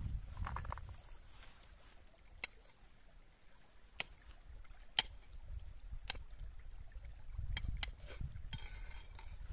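Knife chopping vegetables on a flat stone: about six sharp clicks of the blade striking the stone, roughly one a second, with a low rumble at the start and again near the end.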